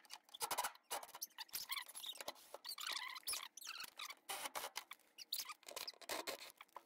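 Faint, irregular small clicks and squeaks of plastic as the wiring-harness clips are worked loose from a top-load washer's plastic outer tub.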